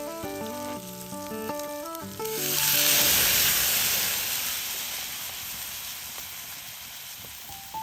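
Background music for about two seconds, then food sizzling loudly as it hits a hot pan, the sizzle slowly dying down.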